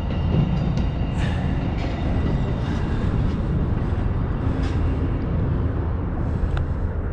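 Amtrak passenger train passing close by, a steady rumble of wheels on the rails with a few faint clicks.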